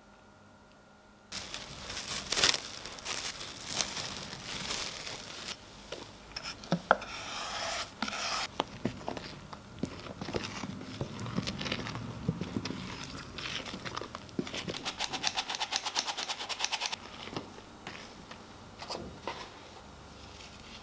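A utensil scraping, rubbing and knocking against a plastic tub as a thick batter is stirred by hand, with rustles and sharp clicks. There is a quick run of rhythmic strokes about two-thirds of the way through.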